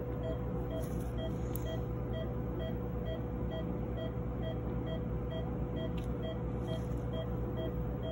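Anesthesia patient monitor beeping in a steady rhythm, about two and a half short beeps a second, marking the anesthetized cat's pulse, over a constant electrical hum. A few faint clicks of surgical instruments come in about a second in and again around six seconds.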